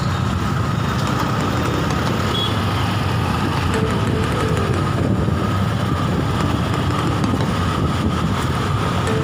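Steady engine and road noise of a ride through town traffic among motorcycles and scooters, with a faint steady whine.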